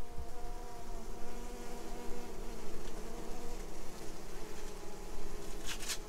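A honeybee swarm buzzing inside a wooden hive box, many wings humming together in a steady, slightly wavering drone. A short scratchy noise cuts in near the end.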